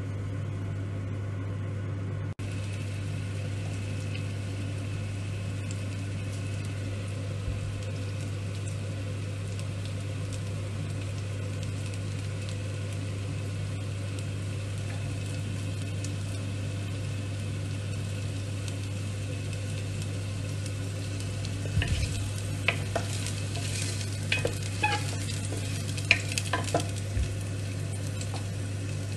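Chopped garlic sizzling gently in oil in a stainless steel pot, over a steady low hum. From about 22 seconds in, a run of sharp clicks and pops.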